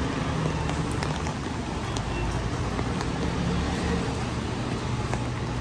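Wet downtown street traffic: vehicles running past on rain-soaked pavement over a steady rain hiss, with scattered sharp ticks of drops.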